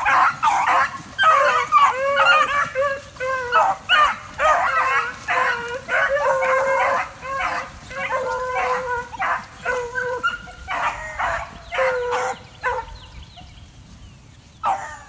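A pack of rabbit-hunting beagles baying together in the brush, many voices overlapping in a continuous chorus: hounds giving voice on a rabbit. The chorus dies away about two seconds before the end.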